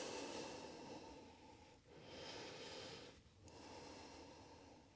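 Faint breathing from a person holding a yoga forward fold: three slow, airy breath sounds, each about a second long.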